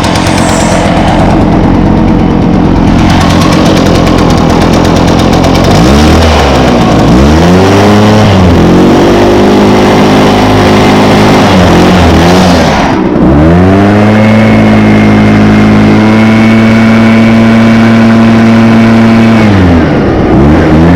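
Echo PB500T backpack blower's 50.8 cc two-stroke engine running loud at high throttle. The throttle is let off and opened again several times, so the pitch drops and climbs back up about six, seven and thirteen seconds in and again near the end.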